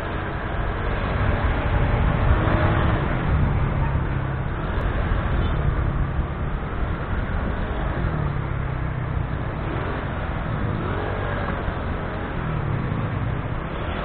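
Motorcycle engine and road noise while riding in city traffic, the engine note rising and falling several times as the bike speeds up and eases off.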